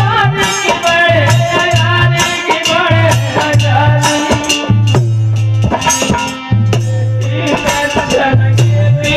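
Live Indian devotional folk music: a man singing into a microphone over a harmonium, with drum and a rattling percussion instrument striking throughout.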